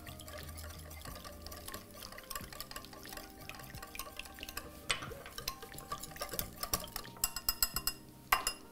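Hand whisk stirring a thick gelatin-laced paste in a glass bowl, with light clinks and scrapes of the whisk against the glass, a quick run of ticks near the end and one sharper clink just before it ends.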